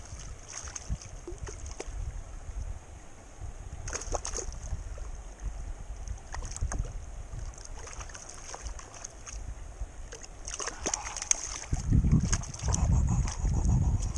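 Stream water running around a wading angler's legs, with small splashes and handling clicks as a trout is unhooked in a landing net. Low rumbling gusts of wind on the microphone from about twelve seconds in.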